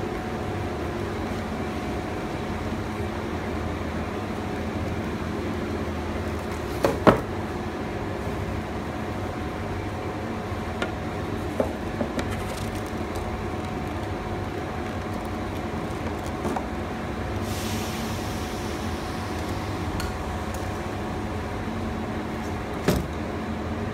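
Steady machine hum with several steady tones, over which a bent aluminium composite panel box is handled on a workbench, giving a few sharp knocks and clicks: a pair about seven seconds in, smaller ones later, and one near the end. A brief hiss comes about two-thirds of the way through.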